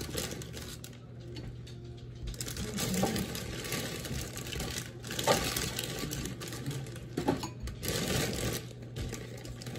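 Clear plastic bag of tortilla chips crinkling as a hand reaches in and pulls chips out, in several spells of rustling and crackling.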